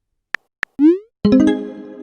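Messaging-app sound effects: two short clicks, then a quick rising pop a little under a second in, then a short synth chime that fades out.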